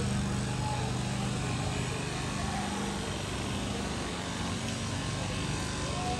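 Street traffic: a steady wash of road noise, with a low engine drone that fades out a little over a second in.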